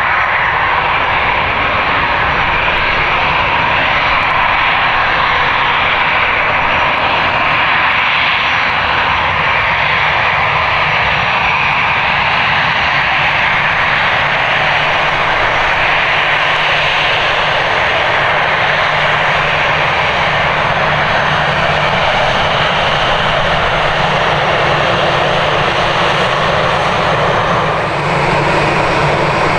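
Twin jet engines of an American Airlines Airbus A320-family airliner running at taxi power as it taxis close by: a steady, loud rumble with a faint high whine.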